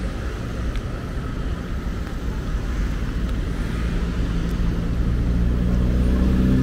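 Low traffic rumble, then a motor vehicle's engine drawing closer, its hum growing steadily louder from about four seconds in.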